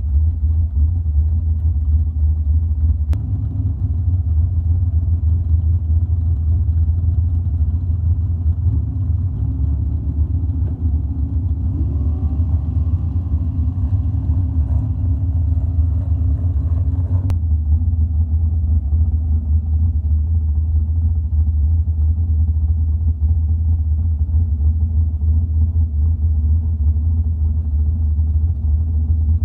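Mud-drag pickup truck engines running with a deep, steady low rumble. From about twelve seconds in an engine revs up with a rising pitch as a truck launches down the mud track, and the sound cuts off suddenly about five seconds later.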